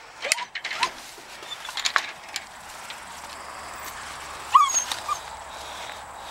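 Laika dogs whining in short high squeaks, a couple about half a second in and a sharper, louder yelp-like whine about four and a half seconds in, with a few light clicks and rustles between.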